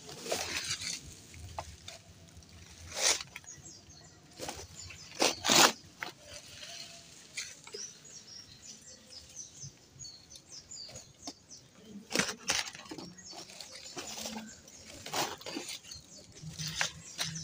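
Dry sticks and branches rustling and clattering against a woven plastic sack as firewood is packed into it, with several sharp knocks of wood on wood.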